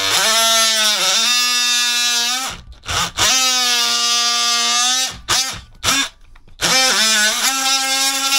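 DeWalt cordless oscillating multi-tool cutting into the end of a floor plank: a steady buzzing whine that starts and stops, three long runs with short blips between, dipping in pitch briefly about a second in.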